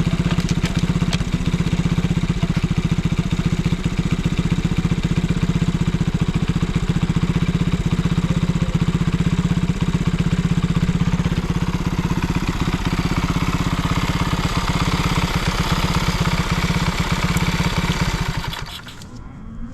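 Honda Monkey Z50J's small single-cylinder four-stroke engine, bored up with a Hayashi 88cc kit, idling steadily with an even run of firing pulses, then dying away near the end. The seller says it runs without abnormal noise.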